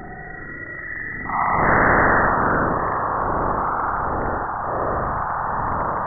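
Cassini RPWS radio and plasma wave data from Saturn's bow shock, played back as sound: faint hiss with thin whistling tones, then a sudden loud rush of noise a little over a second in as the spacecraft crosses the bow shock, settling into a hiss that swells and fades every second or so.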